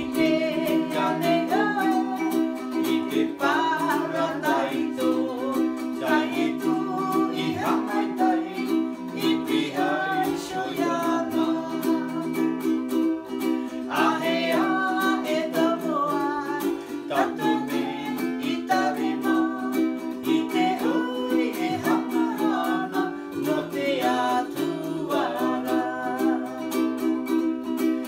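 Two ukuleles strummed together, accompanying singing, with the closeness of a small room.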